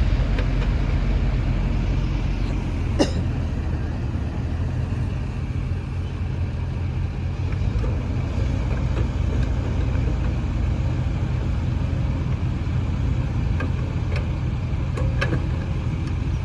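Excavator's diesel engine running steadily, with a sharp knock about three seconds in and a few lighter knocks near the end.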